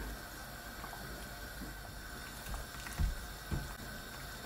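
Wooden spoon stirring a simmering pot of beef soup with dumplings and vegetables, with small scattered clicks and two dull knocks about three seconds in, over a faint steady hum.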